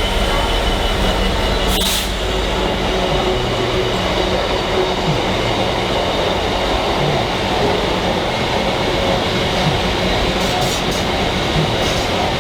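A train moving on the rails, a steady running noise with a few sharp clicks, one about two seconds in and a cluster near the end.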